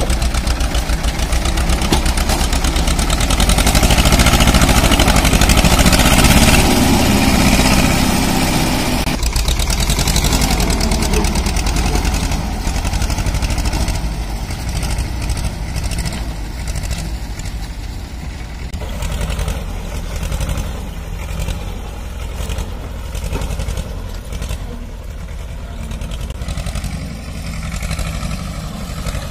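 Old Escorts tractor's diesel engine running hard as it pulls a trolley loaded with sand. It is loudest for the first several seconds, then falls off and stays quieter from around two-thirds of the way through.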